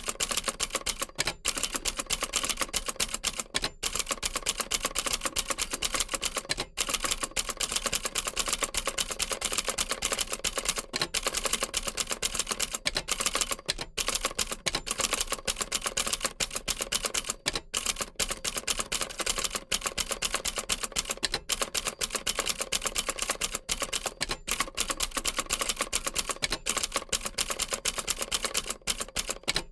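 Old manual typewriter typing continuously: a rapid run of key strikes, with brief pauses every few seconds.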